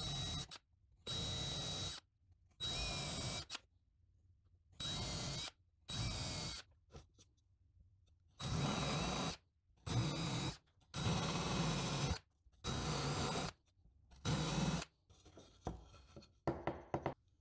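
Electric drill with a Forstner bit boring flat-bottomed holes in a pine board, run in about ten short bursts of half a second to a second each, one burst per hole. A few light knocks follow near the end.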